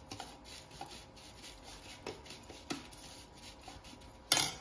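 Steel spoon scraping and tossing crisp fried onion slices around a stainless steel plate, with light rustling and a few faint clinks. A brief, louder knock comes near the end.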